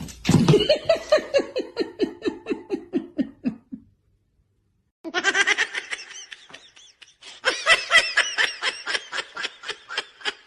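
Human laughter: a rapid run of 'ha' pulses falling in pitch for about four seconds, then after a short break another, higher-pitched stretch of rapid laughing.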